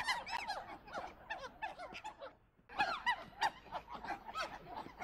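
Monkeys giving rapid high-pitched squeaky chirps, many overlapping calls a second, with a brief pause about halfway through.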